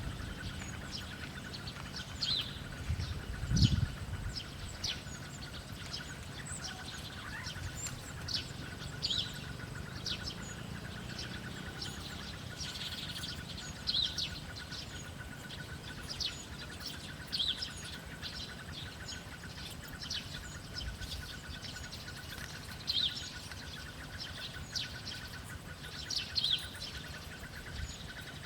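Small birds chirping: short high chirps repeated every second or so over a steady faint high hum. A brief low thump comes about three and a half seconds in.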